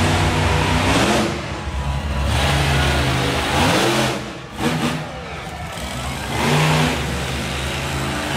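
Monster truck engine revving hard again and again, its pitch climbing and falling with each burst of throttle.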